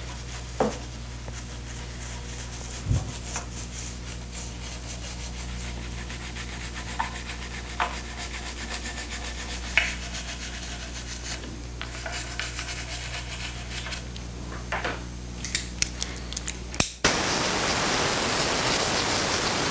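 A brush scrubbing wet carved wood with detergent and water, in quick repeated strokes with a few knocks. About seventeen seconds in, a loud steady rush of air starts, blowing the freshly washed carving dry.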